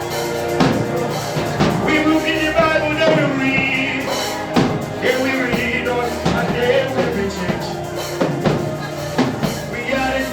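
Live gospel worship music: a band with drum kit keeping a steady beat, bass, and singing voices.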